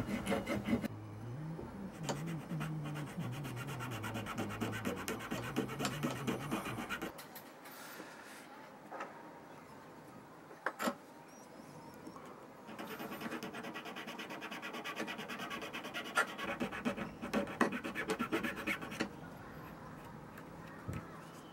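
Hand file rasping in short repeated strokes across the fan blades of a protein skimmer pump's needle-brush impeller, thinning them down. There are two spells of filing with a pause of several seconds between them.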